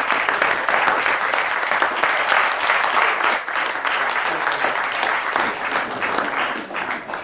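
A crowd of guests applauding, many hands clapping together; the clapping thins out in the last second or so and then stops abruptly.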